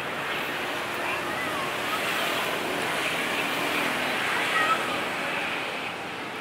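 Busy street ambience: a steady rush of passing traffic that swells slightly through the middle, with faint voices in the background.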